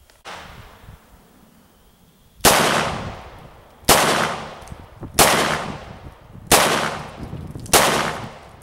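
Taurus 905 9mm revolver firing five shots about 1.3 seconds apart, each followed by a brief ringing decay. Five shots empty its five-round moon clip.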